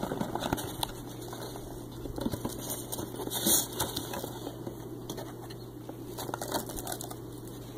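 Foam packing peanuts rustling and clicking as a hand digs through them, with a louder rustle about three and a half seconds in.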